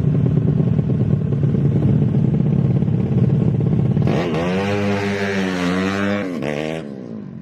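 Small motorcycle engine running with a rough, uneven rumble, then revved up about four seconds in and held high for a couple of seconds before dropping off near the end.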